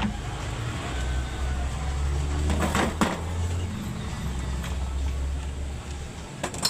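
Isuzu 10PC1 truck diesel engine running with a steady low rumble, with a couple of sharp clicks or knocks over it.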